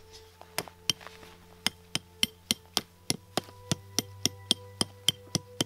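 Small hatchet used as a hammer, its head striking a thin metal tent stake to drive it into the ground: a steady run of sharp metallic taps, about four a second, starting about half a second in.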